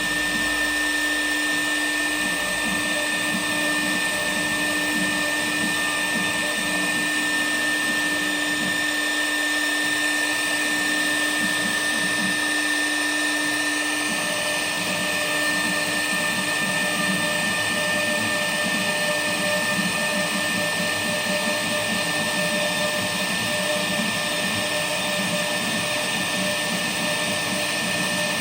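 K1-1325 CNC router running, a steady machine noise with a constant high whine from the spindle. About halfway through, a lower hum gives way to a higher one.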